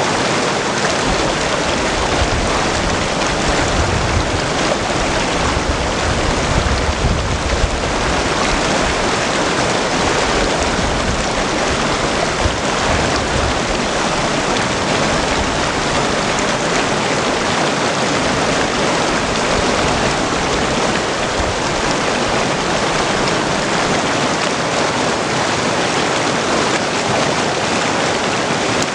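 Mountain creek rushing over rocks and stones: a steady, unbroken rush of water.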